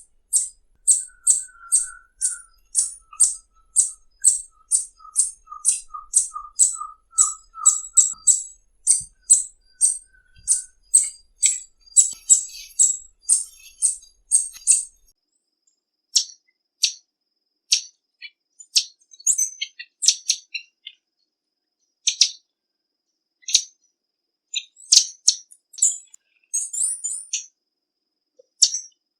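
Tanager calls: a fast run of short, high, sharp chip notes, about three a second, thinning to scattered chips about halfway through. A softer, lower repeated note sounds underneath during the first eight seconds or so.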